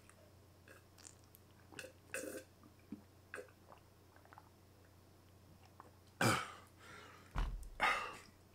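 A man drinking water in long gulps from a large glass jug, with faint swallowing sounds. A loud breath out after drinking, a low thump about seven seconds in, and another breath near the end.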